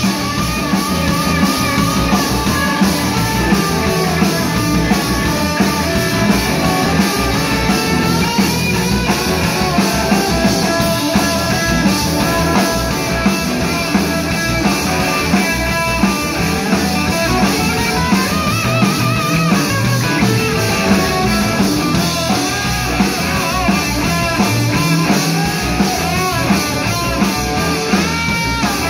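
Live rock band playing an instrumental stretch: two electric guitars, bass guitar and drum kit, with wavering, bending guitar lines on top.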